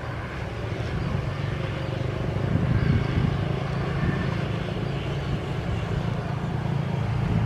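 Motorcycles passing close by, their engines running with a steady hum that swells around three seconds in and then eases.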